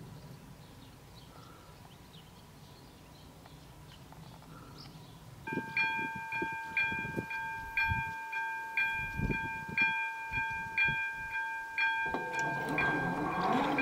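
Level-crossing warning bell of a Czech AŽD PV LED crossing starting up about five seconds in, striking a ringing electronic tone about twice a second: the crossing is closing for an approaching train. Before it, faint countryside ambience with a few bird chirps; near the end a louder rushing noise builds up.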